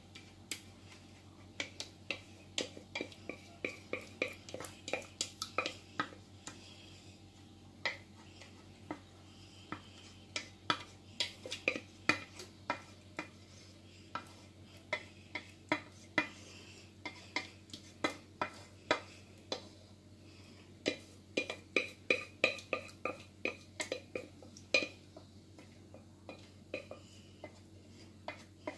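Metal kitchen tongs clicking and tapping against a glass baking dish and pasta while béchamel sauce is spread over penne: many irregular sharp clinks, sometimes in quick clusters.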